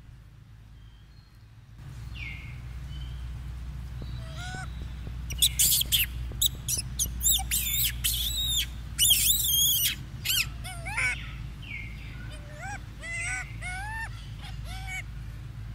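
Macaques calling: from about five seconds in, a run of loud, high, wavering screeches, then a string of shorter rise-and-fall squeaks.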